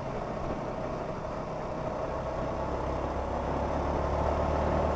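Yamaha XSR155's single-cylinder engine running steadily under way, with road noise, getting gradually louder.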